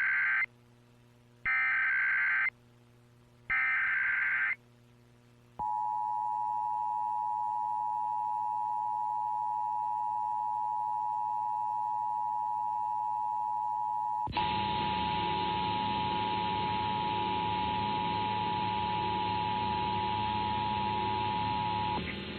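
Emergency Alert System test over AM radio. It opens with the end of one SAME header data burst and two more harsh, buzzy digital bursts about a second apart. About five and a half seconds in, the two-tone attention signal starts: two steady tones sounding together, 853 and 960 Hz, held for about sixteen seconds before cutting off. A hiss of reception noise rises beneath the tone about fourteen seconds in.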